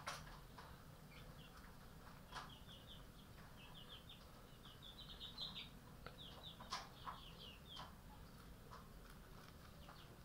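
Cat eating dry kibble from a metal bowl, with faint scattered crunches and clicks. From about a second in until near the end, faint short high chirps come in quick clusters of three or four.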